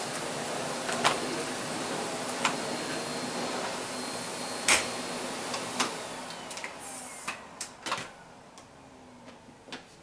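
Miele S6 canister vacuum running on carpet with a steady motor hum, broken by several sharp clicks and knocks. About six and a half seconds in it is switched off, and the motor whine falls in pitch as it winds down.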